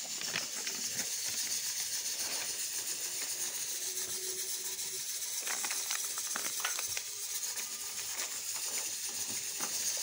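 A steady hiss throughout, with a cluster of crinkles and clicks a little past the middle as a hand rummages in a plastic packet.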